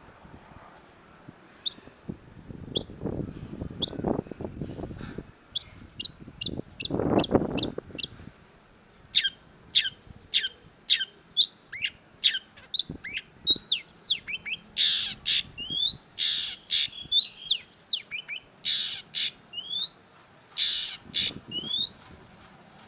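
Long-tailed shrike singing: a quick run of sharp whistled notes, each sweeping down in pitch, mixed from about the middle on with harsh rasping calls. Two spells of low rumbling noise in the first half.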